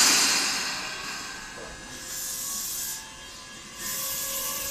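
Tobu 20050-series electric train starting off from the platform. Its brakes release with a loud hiss that fades, more hissing follows, and near the end a faint motor whine begins to rise in pitch as the train picks up speed.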